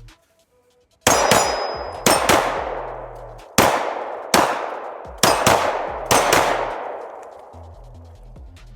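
A string of about ten sharp 9mm pistol shots from a Glock 19, fired in quick pairs and singles over about five seconds. Each shot has a long metallic ringing tail.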